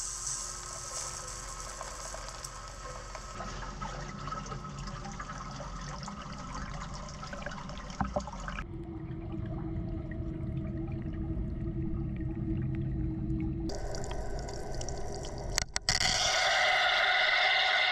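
Water gushing and splashing into a wire EDM's work tank as it floods around the fixtured part. The sound changes abruptly a couple of times and becomes louder and steadier over the last two seconds.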